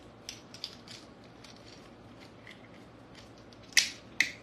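Small plastic utensils being handled in their clear wrapping: a few light clicks and crinkles, then two sharp plastic snaps about half a second apart near the end.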